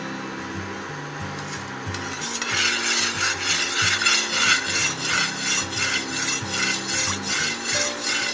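Perforated metal spoon scraping around the inside of a nonstick kadai, spreading oil over the pan. Regular scraping strokes, about two or three a second, start about two seconds in.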